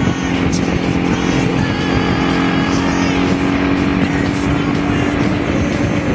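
Honda V-Twin Magna 250's 250 cc V-twin engine running at a steady speed under way, with wind rushing past the microphone.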